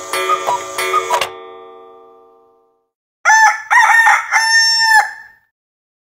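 Nokia N93i stock alarm and message tones played back. A chiming electronic tone sequence stops about a second in and rings out over the next second and a half. After a short pause, a second alert of about two seconds plays in three pitched parts that bend up and down.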